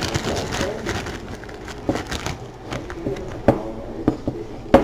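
Dry rice being poured from a plastic sandwich bag into a nylon knee-high stretched over a cup: the bag crinkles and the grains make scattered clicks, with sharper clicks about two seconds in, at three and a half seconds, and near the end.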